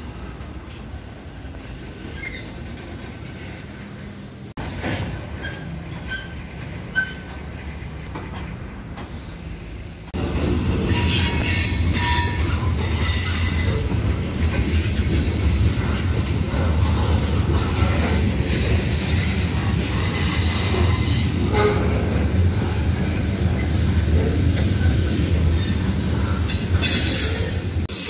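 Freight train cars, covered hoppers and tank cars, rolling past close by, their steel wheels running on the rails with a few brief squeals. The sound steps up much louder about ten seconds in.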